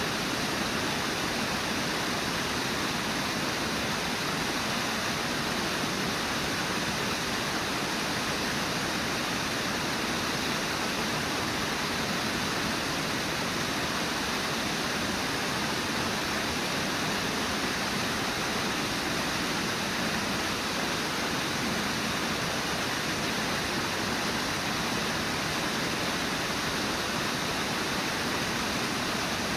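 Water of Brooks Falls rushing steadily over the falls, an even, unbroken noise.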